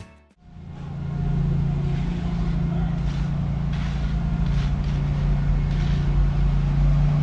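An engine running steadily with a low hum. It fades in over the first second as background music cuts off, and a few faint scrapes sound over it.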